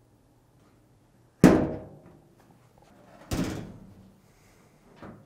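The top cover of a Samsung DVE45R6100W dryer is set down onto the cabinet while it is aligned on its guides. There are two sharp thunks about two seconds apart, the first the louder, and a faint tick near the end.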